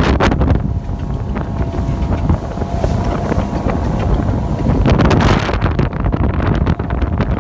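Wind buffeting the microphone of a Bayliner Capri speedboat running at speed, with its 3.0 MerCruiser four-cylinder engine as a steady drone under the wind. The hull slaps through the chop and spray.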